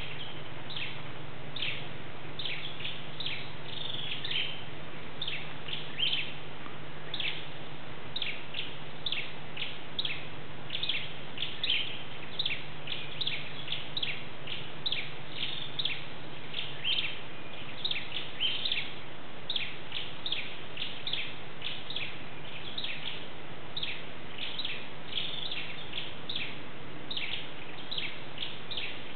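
A bird calling over and over: a long run of short, high chirps at about two a second, with small irregular gaps.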